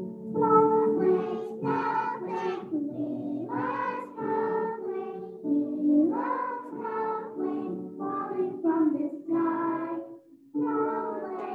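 A group of preschool children singing together over an instrumental accompaniment, with a short gap about ten and a half seconds in.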